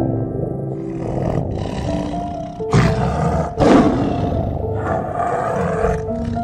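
A big cat roaring and growling in a run of about five calls, the loudest about halfway through, over soft background music with held notes.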